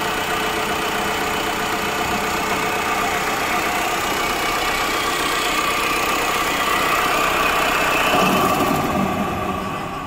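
Tata Safari's diesel engine idling steadily with the accessory drive belt removed, free of the bearing noise: with the belt off the noise is gone, which points to the alternator's clutch pulley as its source.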